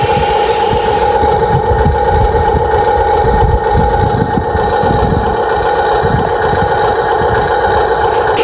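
Excavator running steadily: a constant engine drone with a steady whine over it and an uneven low rumble. The high hiss drops away about a second in.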